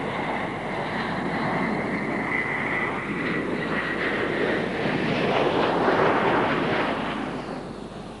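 Concorde's four Olympus 593 turbojets coming in to land: a steady high whine over the jet rush, growing louder to a peak about six seconds in, then dropping off near the end as the aircraft reaches the runway.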